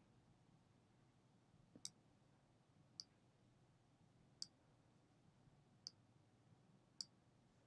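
Faint clicking of a computer mouse button: five single clicks about a second or so apart.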